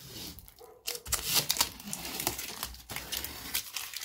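Protective plastic film being peeled and pulled off a new window frame: a soft rustle, then from about a second in a louder, dense crackle of many small clicks.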